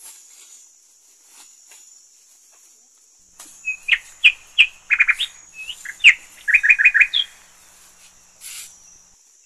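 A songbird calls in a loud burst of chirps and whistled notes, ending in a quick rattle of repeated notes. It starts about three and a half seconds in and lasts about four seconds. A steady high insect buzz runs underneath.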